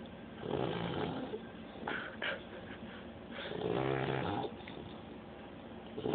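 Puppy snoring in its sleep: a breath about half a second in, a couple of short snorts around two seconds, then a longer pitched snore a little after three seconds.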